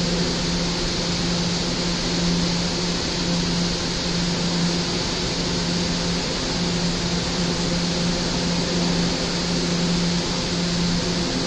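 R211A subway car's air-conditioning and onboard equipment running steadily while the train stands in a station with its doors open: an even hiss over a steady low hum.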